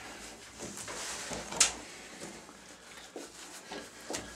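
Hands rubbing shampoo into a wet dog's fur: soft scattered rubbing and small clicks, with one brief sharp sound about one and a half seconds in.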